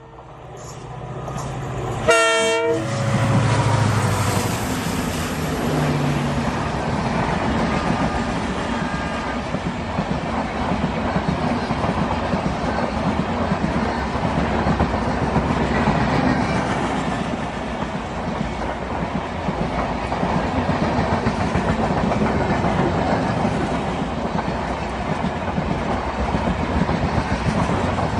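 Express passenger train passing at speed behind an EMD WDP-4 diesel locomotive with a WAP-7 electric piggybacked. The locomotive horn sounds one short blast about two seconds in, with the diesel's low rumble as the locomotives go by. After that comes the steady rush and clickety-clack of the coaches rolling past.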